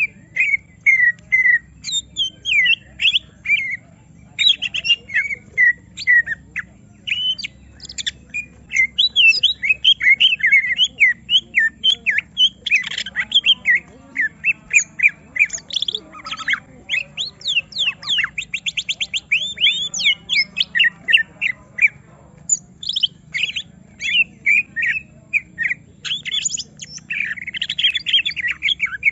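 Cucak ijo (greater green leafbird) in agitated song, provoked into "emosi": a fast, varied stream of short whistled and squawking notes. Harsher, rasping notes come near the middle, followed by a rapid run of evenly repeated notes.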